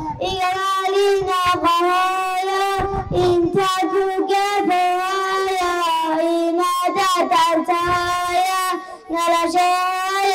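A boy singing solo into a microphone, holding long, wavering notes, with a short break about nine seconds in.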